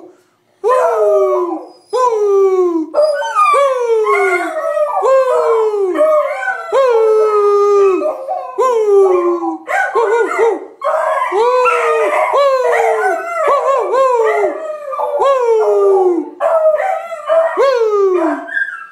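Two young beagles howling together. Their bays overlap, each one falling in pitch, and they follow one another almost without a break after a short pause at the start.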